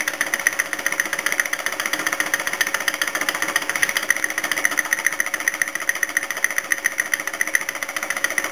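Small homemade laminar flow engine running steadily on an alcohol burner, a fast, even mechanical ticking with a steady hum under it, as it drives a small generator lighting an LED.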